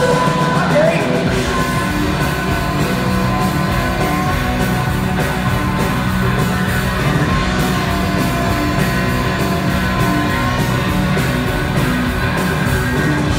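Live rock band playing loudly and steadily through a concert hall's PA, with electric guitars, bass and drum kit, heard from the balcony.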